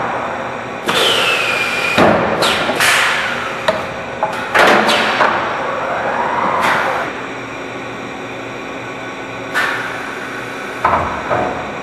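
Automated sheet-metal forming line at work: repeated sharp metallic clanks and thumps, with machine whines that sweep down or up in pitch and a steady hum underneath.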